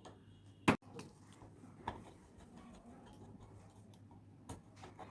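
A few scattered sharp clicks and taps over a faint steady hum, the loudest about two-thirds of a second in.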